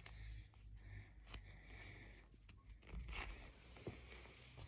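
Near silence with faint rustling, scraping and a few soft clicks as a slow-rising foam squishy toy is squeezed and handled.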